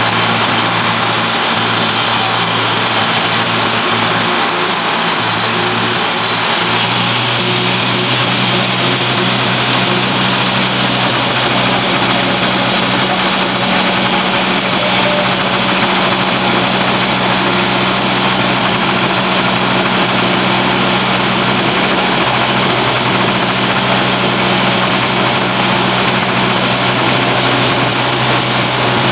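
Sawmill machinery running loudly and steadily: a constant motor hum under a broad noisy hiss, which shifts slightly about seven seconds in.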